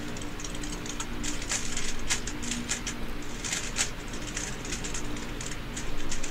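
Light clicks and rustles of a plastic 3x3 speedcube being handled and turned over in the hands, then set down on the mat near the end.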